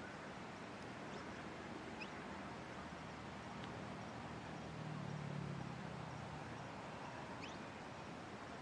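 Steady outdoor background hiss with a few faint, very short, high bird chirps scattered through it. A low engine hum swells slightly about halfway through.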